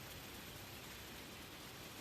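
Gentle waterfall: a steady, faint hiss of falling water.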